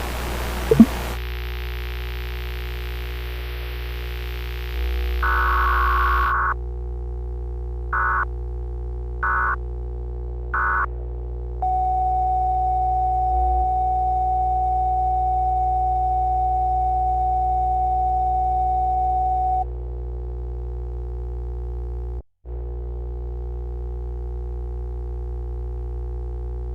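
Emergency Alert System sequence over a low, steady synth drone. First comes one longer buzzy data burst, then three short ones like an EAS header. A steady alert tone follows for about eight seconds, and the sound cuts out for a moment near the end.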